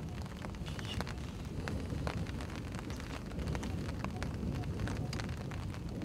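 Outdoor ambience: a continuous low, uneven rumble with many scattered light ticks throughout.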